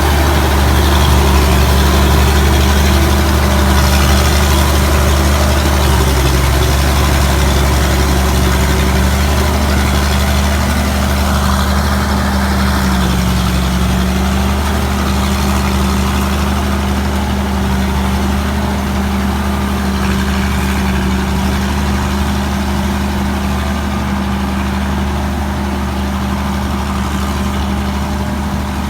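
Combine harvester's Hino J08C diesel engine running steadily, a constant low drone.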